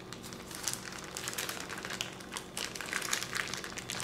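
Plastic zip-top bag crinkling in short, irregular rustles as it is handled and squeezed to press the air out.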